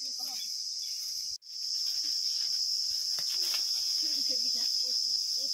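Steady, high-pitched insect chorus, cutting out for an instant about a second and a half in and then running on.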